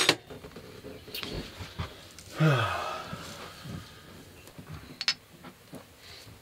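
A man's short wordless vocal sound, falling in pitch, about two and a half seconds in, with a few small sharp clicks.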